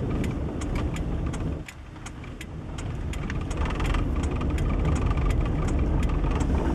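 Steady low rumble of a vehicle on the move, with scattered light clicks; the rumble drops away briefly about a second and a half in, then builds back up.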